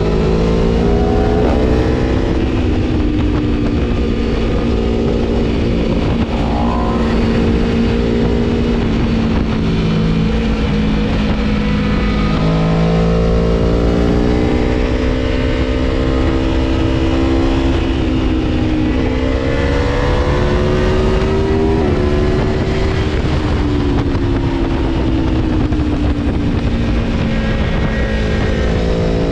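Aprilia Tuono V4 1100's V4 engine, Stage 3 tuned, pulling and easing off on the throttle while riding, its note rising and falling over and over.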